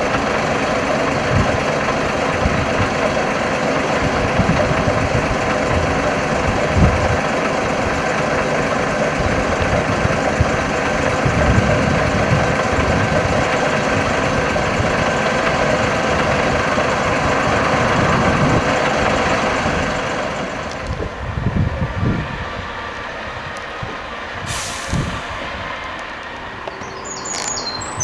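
Volvo lorry's diesel engine running as it hauls a low-loader, a steady heavy rumble that eases off after about twenty seconds. Birds chirp near the end.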